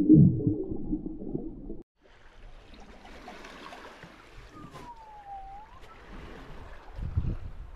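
Low muffled sound of an underwater recording that cuts off after about two seconds. Then water swishes and rushes along a sailboat's hull as it sails slowly downwind. Midway comes a short high squeak that dips in pitch and rises again, and there is a low thump near the end.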